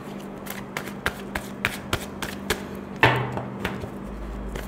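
A deck of tarot cards being shuffled by hand: a quick, irregular run of small card taps and flicks, with one louder knock about three seconds in.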